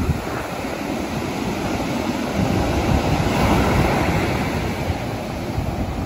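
Ocean surf breaking on a sandy beach, a continuous rushing wash of white water that grows louder in the middle as a wave breaks and spills toward shore.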